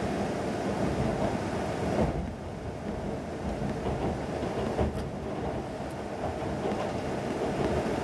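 Running noise of an E6 series Komachi shinkansen heard inside the passenger cabin: a steady rumble of wheels on rail. The upper hiss drops about two seconds in, and there are a couple of sharp clicks.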